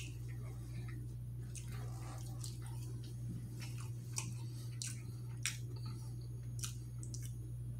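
A person chewing food, with short wet smacks and clicks scattered through, over a steady low hum.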